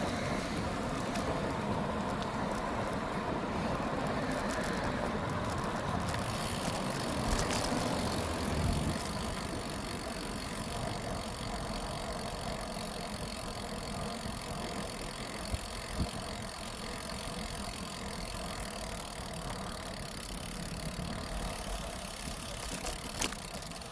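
Steady road and wind noise from riding a bicycle, changing in character about six seconds in, with a few sharp clicks in the second half.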